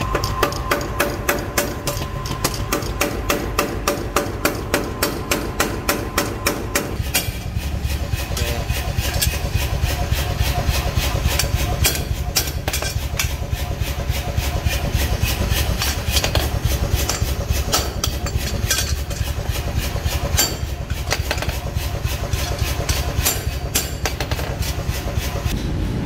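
Hand hammer blows on a hot steel cleaver blade on an anvil, about two a second, each with a ringing clang. After about seven seconds the ringing stops and a rapid, denser clatter over a low steady rumble takes over.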